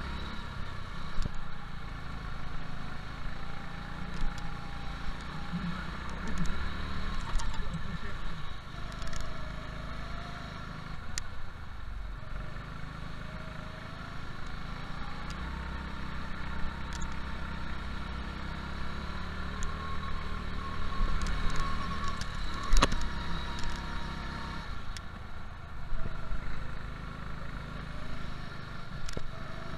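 Go-kart engine running under race load, its pitch rising and falling as the kart accelerates and lifts through the corners. A single sharp knock comes about three-quarters of the way through.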